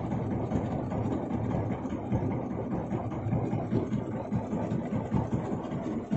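Fishing boat's engine idling with a steady low rumble.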